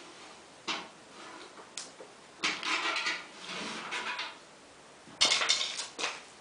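A series of knocks and rattling clatter from hard objects being handled, with the loudest clatter near the end.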